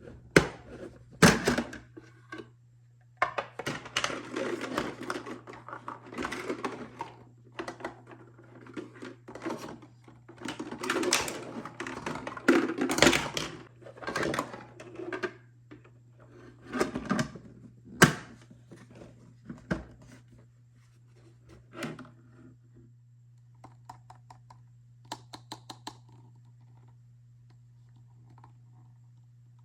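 Plastic toy kitchen pieces and their packaging handled during unboxing: irregular clicks, knocks and rustling, with sharp knocks about a second in and again around eighteen seconds, and a quick run of small ticks near the end. A faint steady low hum lies underneath.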